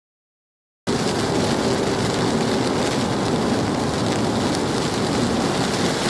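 Heavy rain on a moving car, with tyres hissing through water on a wet highway, heard from inside the car: a steady rush of noise that cuts in suddenly just under a second in, after dead silence.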